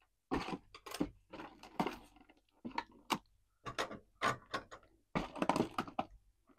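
A doll stand and small accessories being taken out of their packaging by hand: an irregular run of clicks, taps and short rustles.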